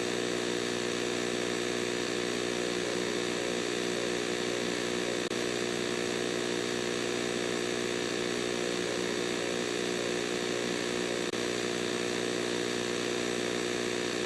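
Steady, buzzing electronic alarm tone of an EAS-style emergency alert, held without change.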